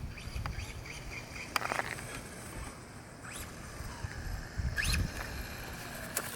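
Traxxas Slash 4x4 RC truck's electric motor and drivetrain whining in short bursts, each rising quickly in pitch as the throttle is blipped, about three times, with a slower rising whine near the end. This is the unexplained noise the owner is asking about, together with gears that seem slow to engage and a truck that is slow to get up to speed.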